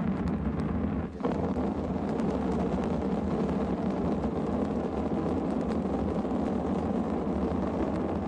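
Rocket motor test firing: a steady rushing noise with a low hum beneath it, dipping briefly about a second in.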